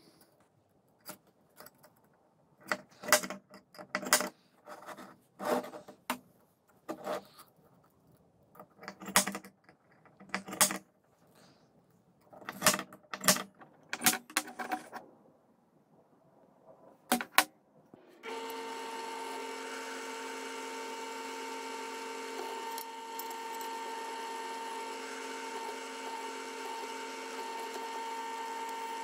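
A series of sharp metallic clicks and clacks as steel plates are handled and marked with a spring-loaded automatic centre punch. For the last third, a benchtop drill press starts and runs with a steady, even whine while drilling through a steel plate.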